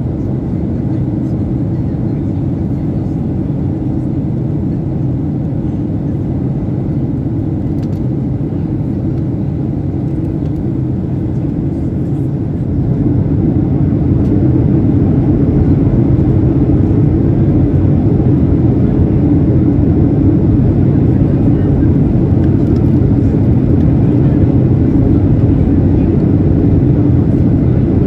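Airliner cabin noise: a steady low rumble of the engines and airframe. It steps up in level about halfway through and stays louder.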